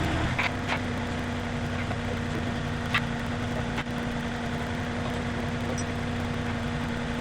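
A vehicle engine idling steadily, with a few light clicks and knocks over it.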